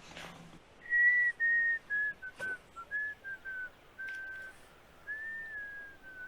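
A person whistling a tune: a string of clear held notes beginning about a second in, mostly stepping down in pitch and then rising again near the end. A faint click falls about halfway through.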